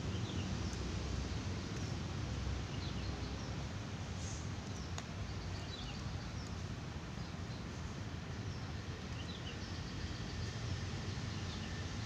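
Steady low outdoor rumble, with faint short high chirps from small birds every second or two.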